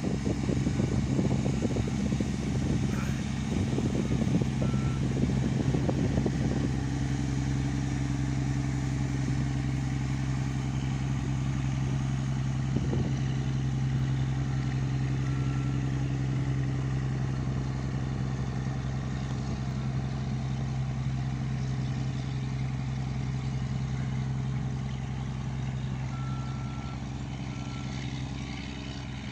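Engine of a loaded wooden dhow running steadily as the boat motors past, an even low drone that eases off near the end as it moves away. Rough crackling noise covers the first six or seven seconds, and a short high beep sounds a few times.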